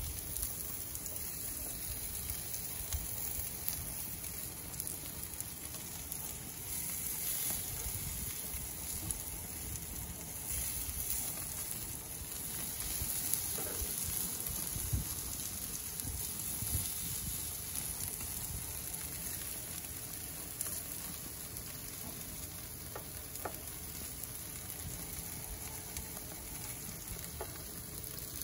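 Chicken pieces and skewered chicken tikka and boti kebabs sizzling on a gas barbecue grill: a steady hiss with a few small crackles.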